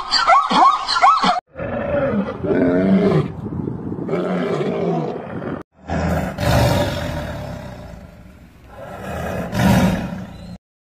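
Tiger roaring and growling in deep, rough calls that swell loudest about six seconds in and again near the end. A short burst of high-pitched animal calls comes before them at the very start.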